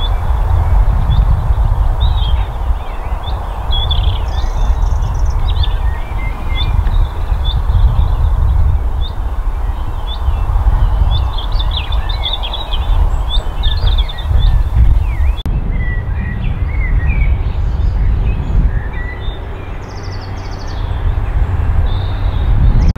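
Small birds chirping and twittering, many short calls throughout, over a loud, unsteady low rumble.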